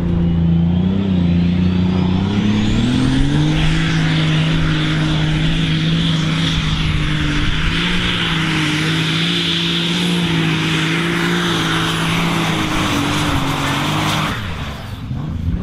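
Super Stock pulling tractor's turbocharged diesel engine at full throttle, hauling a weight-transfer sled. A high turbo whistle rises over the first few seconds, and the engine note climbs and then holds steady. The engine drops off sharply about a second before the end, as the pull finishes.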